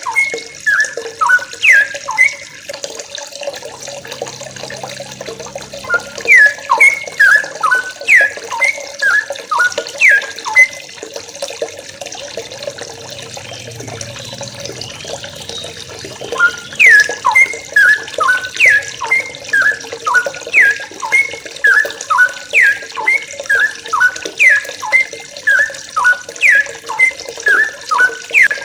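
Yellow-vented bulbuls (trucuk) calling in quick bubbly phrases of short, sharply down-slurred chirps, pausing for a few seconds in the middle, over a steady watery hiss.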